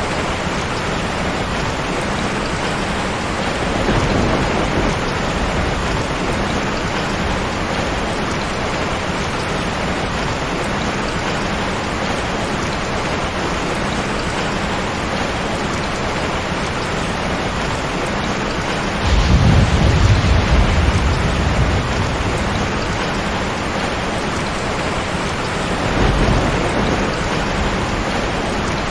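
Heavy rain pouring steadily, with thunder rumbling three times: a short roll about four seconds in, the loudest rumble about two-thirds of the way through, and a lighter one near the end.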